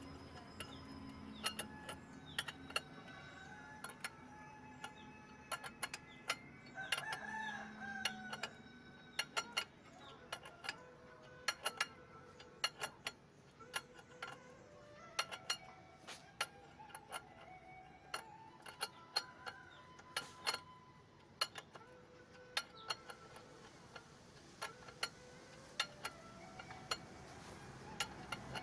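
Irregular sharp metallic clicks and clinks, often several a second, from tools and metal brake parts being handled during brake work.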